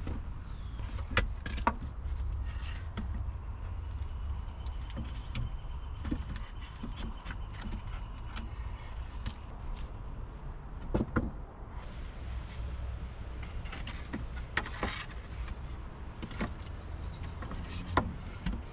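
Cut wooden poles knocking and clattering against each other and the log supports as they are laid across a bed frame, in scattered single knocks. A bird calls briefly near the start.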